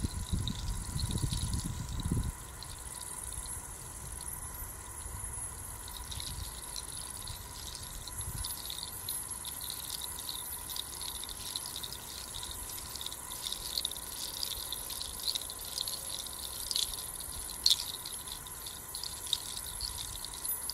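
A hand-held rattle of strung dark pods or hooves, softly shaken so that it clatters in fine, irregular clicks that thicken about six seconds in, with one sharper click near the end. Crickets chirr steadily behind it, and a low rumble fills the first two seconds.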